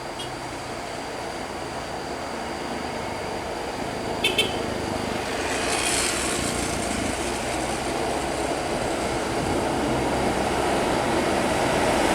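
An intercity bus approaching with its engine running, its noise growing steadily louder. Two short horn toots sound about four seconds in.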